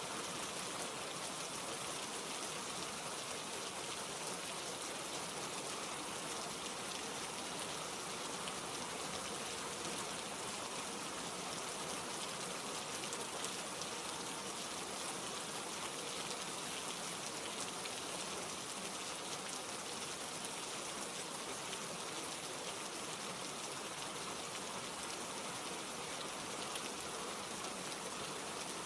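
Steady rain falling, an even patter of raindrops with no rise or fall.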